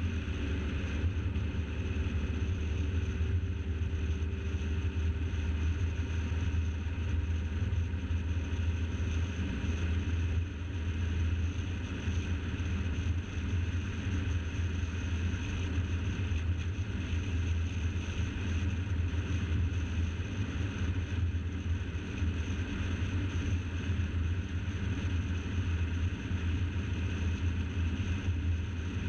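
Car cruising at a steady speed: a constant low rumble of wind and road noise from a camera mounted on the bonnet, with no change in pace.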